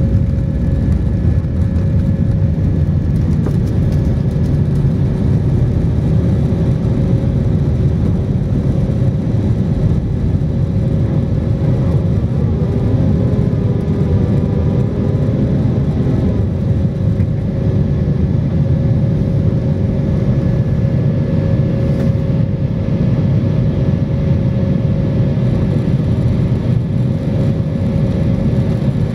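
Cabin noise of an Airbus jet airliner at takeoff thrust, from the end of its takeoff run into the initial climb: a loud, steady roar of the turbofan engines and rushing air with a constant hum. A few faint wavering tones come in briefly around the middle.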